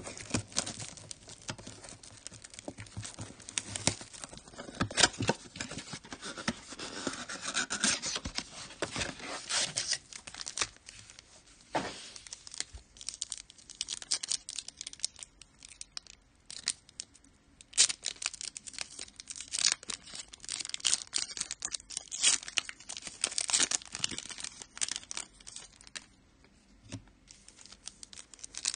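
Trading-card pack wrappers being torn open and crinkled by hand, an irregular run of tearing and crackling.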